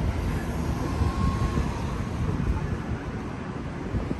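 City street ambience: a steady low rumble with a wash of noise and no single sound standing out.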